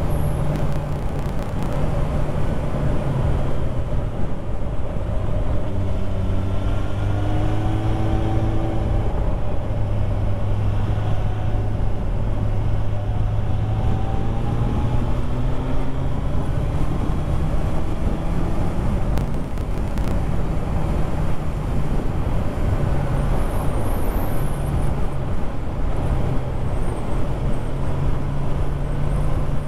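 Motorcycle engine running at road speed under a steady rush of wind and road noise, its note rising and falling a few times.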